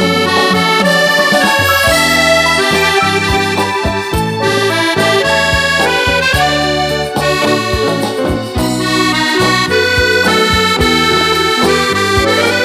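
Fratelli Crosio chromatic button accordion playing a melody, accompanied by keyboard and a drum kit keeping a regular beat.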